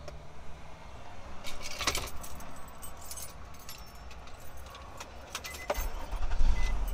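Small metal items jangling and clinking as they are handled, in a string of light high clicks, with a low rumble building near the end.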